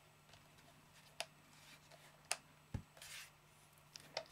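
Faint handling noises from screwing a portable air compressor's threaded hose fitting on by hand: a few sharp clicks and light rubbing.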